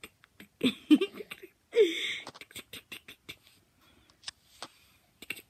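A baby's short squeals and coos, the second falling in pitch, over a run of sharp clicks.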